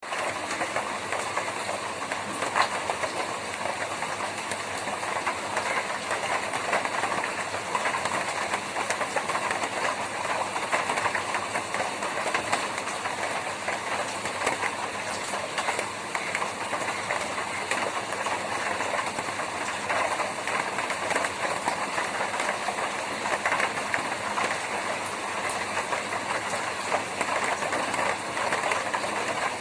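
Rain falling on a tin roof: a dense, steady patter of many small drop hits on the metal.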